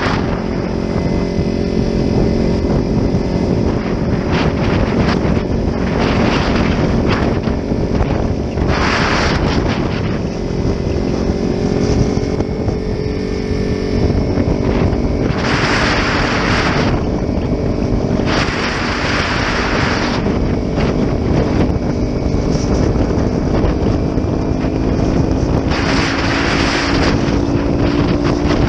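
Sport motorcycle engine running at a steady cruise with wind rushing over the microphone, the engine note climbing slightly near the end. Several louder bursts of wind hiss come and go, about 9, 16, 19 and 26 seconds in.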